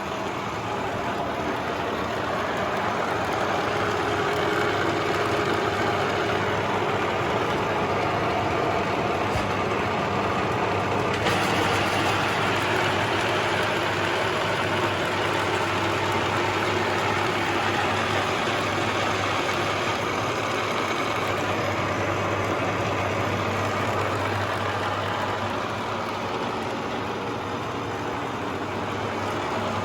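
Huron MU6 milling machine running with a steady mechanical hum and whir. About eleven seconds in, a brighter, higher whir joins and carries on.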